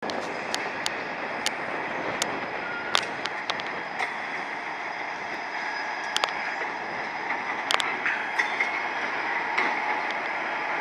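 CSX road slug and its mother locomotive rolling slowly past with a string of covered hoppers: a steady running noise of the locomotives and wheels, broken by many sharp irregular clicks and knocks from the wheels on the rails. A couple of brief faint squeals come from the wheels, one about three seconds in and another past the eight-second mark.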